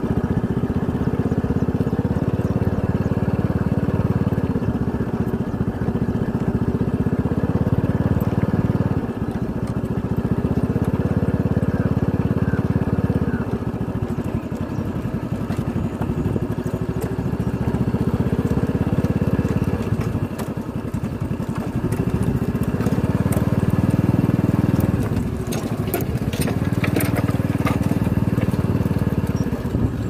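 Motorcycle engine running at low road speed close to the microphone. Its note rises and eases every few seconds as the throttle is opened and backed off. A few sharp clicks and rattles come near the end.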